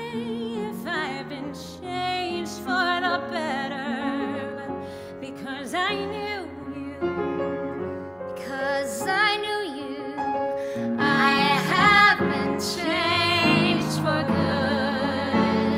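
Recorded musical-theatre ballad: a woman singing with wide vibrato over piano accompaniment, swelling louder about two-thirds of the way through.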